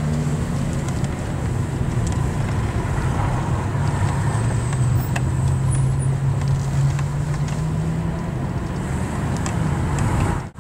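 Car engine running at low revs in slow street traffic: a steady low drone that eases off after about eight seconds, over road and tyre noise.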